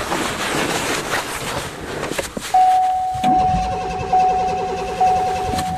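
Ford's starter cranking the cold engine without it catching, under a steady high electronic warning tone from the dash. The tone comes on about two and a half seconds in, after a couple of seconds of wind noise, and restarts twice.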